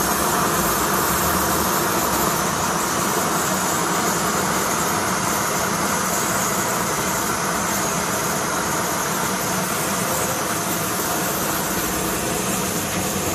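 Steady, even mechanical rushing noise with a low hum, holding level with no change.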